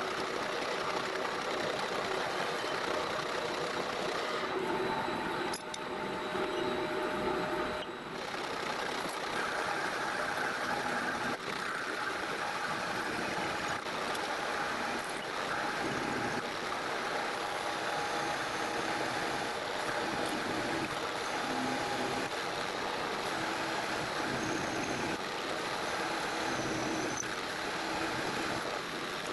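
Metal lathe running under cut, its tool cutting a ring groove into the face of a large spinning steel disc: a steady machine running sound with the noise of the cut, briefly changing about eight seconds in.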